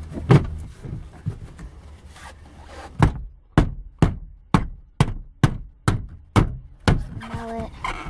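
Plastic interior trim panel of a minivan's sliding door being struck to snap its retaining clips into the door. There is one thump just after the start, then from about three seconds in a steady run of about ten thumps, roughly two a second.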